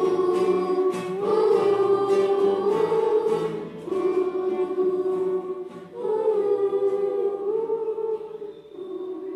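A children's class choir singing long held notes that change pitch every second or two. The singing drops softer on a last held note near the end.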